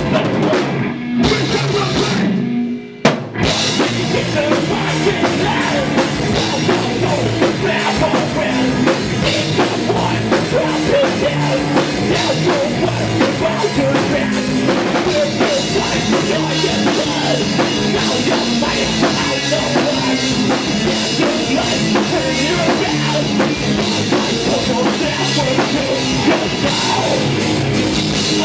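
A rock band playing live, with drum kit and guitars. About three seconds in, the band stops briefly and comes back in on a hard hit.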